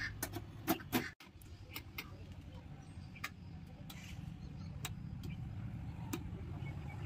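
Sheet-metal cover of a voltage stabiliser clicking and knocking into place in the first second or so. It is followed by a low steady hum with a few single sharp clicks as the unit's front switch is handled.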